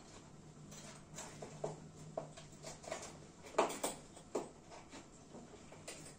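Small, irregular clicks and taps of metal hand tools working the tiny parts of a lighter's gas refill valve, about a dozen ticks with the loudest near the middle.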